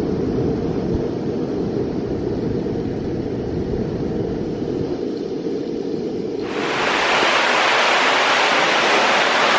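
A muffled low rumble, then about two-thirds of the way in a sudden switch to the loud, even rush of a waterfall.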